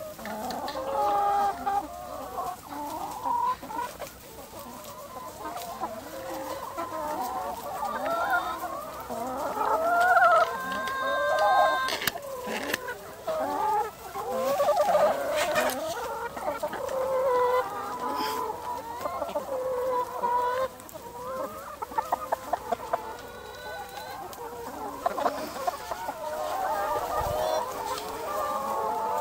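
A large flock of brown laying hens clucking continuously, many calls overlapping, with a few sharp clicks here and there.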